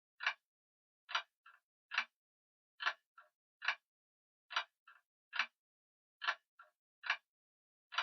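Grandfather clock ticking: sharp, evenly spaced ticks a little faster than one a second, every second tick followed closely by a fainter click.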